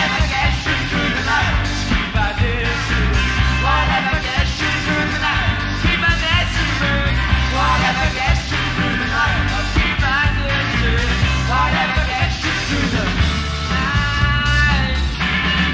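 Live rock band playing: steady bass and drums under a sliding lead melody. About fourteen seconds in, a sustained high chord comes in briefly.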